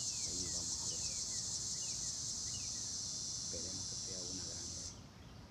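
A steady high-pitched drone of insects, with a bird's short falling chirps over it; the drone cuts off abruptly near the end.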